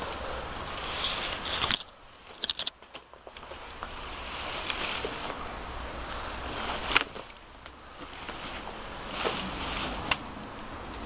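Outdoor rustling and wind noise on a handheld camera's microphone, in irregular surges of hiss, with a low rumble that drops out suddenly about two seconds in and a few sharp clicks and crackles.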